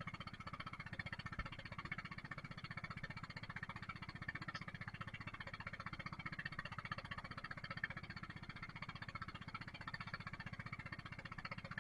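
Fishing boat's engine running steadily under way, with a fast, even chugging beat.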